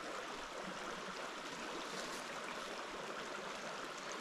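Steady rush of a small mountain creek flowing.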